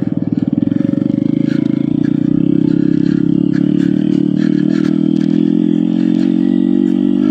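Honda Grom's single-cylinder four-stroke engine running at a steady, held throttle while the bike is ridden. A few light clicks and rattles come through partway in.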